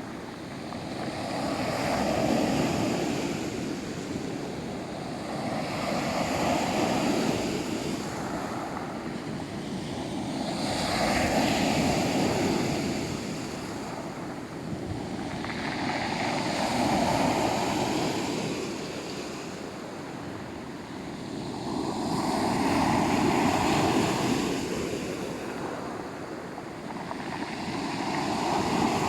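Black Sea waves surging in and ebbing away, about one swell every four to five seconds.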